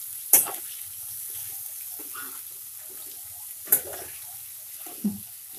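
Chopped vegetables frying in hot tempering oil in a metal kadai, with a steady sizzle. They are stirred with a metal spoon that knocks and scrapes against the pan three times.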